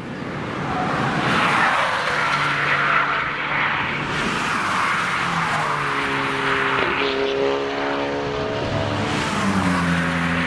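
Cars passing close by one after another on a race track, engines running hard through a corner. One engine's pitch falls as it passes about seven seconds in, and a second car's engine comes in near the end.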